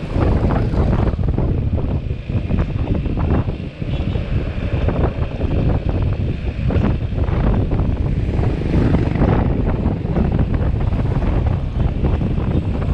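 Wind buffeting the microphone of a helmet-mounted camera on a moving Yamaha XMAX 300 scooter, with the scooter's engine and road noise underneath.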